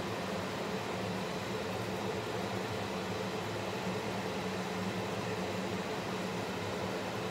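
Steady whirring hum of a kitchen range-hood extractor fan running over the stove, even and unchanging.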